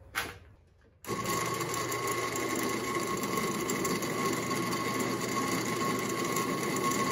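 12-inch benchtop drill press switched on about a second in, running steadily with a mild wire brush (paint stripper) wheel in its chuck, a rusty bolt held against it to strip off the rust. A steady motor whine sits over a rough brushing noise.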